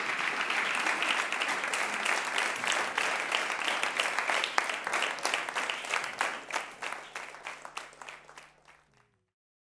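Audience applauding, the clapping thinning out and dying away until it cuts to silence about nine seconds in.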